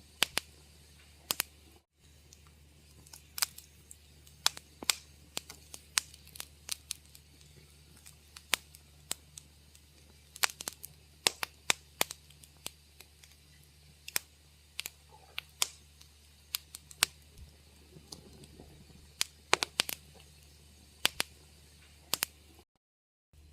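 Wood fire crackling in a fireplace: irregular sharp pops and snaps, several a second at times, over a faint steady low hum. The sound cuts out briefly about two seconds in and again near the end.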